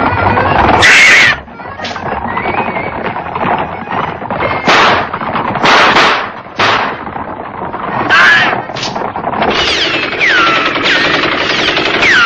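Cartoon revolver gunfire: a dense, continuous barrage of shots with several louder bangs standing out, and a few falling whines near the end, like ricochets.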